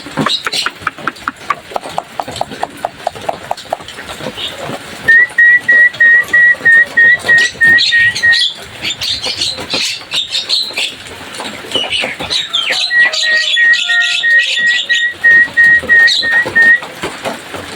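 Javan myna calls: a fast clicking rattle, then harsh chattering mixed with two runs of short whistled notes repeated about three times a second.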